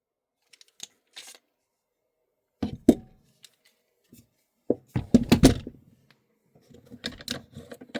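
Clicks and clacks from an airsoft gas blowback rifle and its magazine being handled: a few light clicks, then heavier knocks around three seconds in, and a dense cluster of loud clacks about five seconds in.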